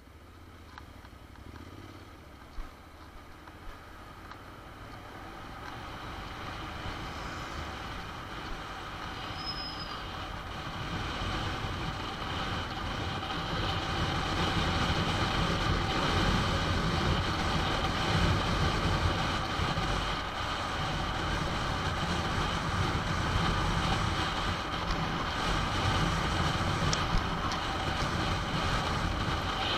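Honda NC750 motorcycle riding through city traffic, its parallel-twin engine mixed with road and wind noise. The sound builds steadily louder over the first fifteen seconds or so, then holds.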